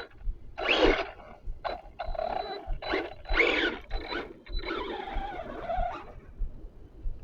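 Electric motor of an Arrma Granite RC truck whining in a series of short throttle bursts, its pitch rising and falling with each burst, with a thin steady high whine under them, as it pushes a plow through heavy snow. The longest burst comes near the end.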